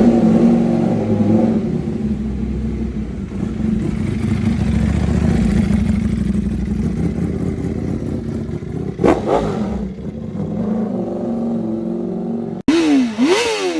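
Superbike engine running steadily with a deep exhaust note, with one quick rev about nine seconds in. After an abrupt cut near the end, a bike's engine is revved in sharp blips that rise and fall in pitch.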